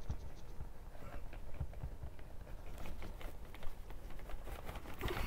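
Handling noise of a CD box set being moved and opened by hand: faint scattered taps and rustles, growing busier in the second half, ending in a sharper knock.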